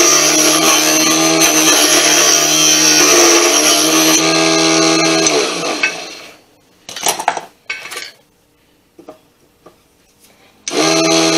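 Sanjiang mini lathe's small motor running with a steady hum while a turning chisel cuts a redwood blank. The motor is switched off about five seconds in and winds down, dropping in pitch. A few light knocks follow in the pause, and the motor starts up again abruptly near the end.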